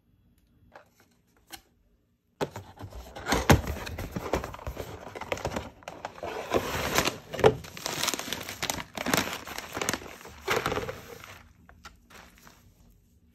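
Cereal packaging crinkling and rustling as it is handled and opened, starting suddenly about two seconds in and easing off near the end.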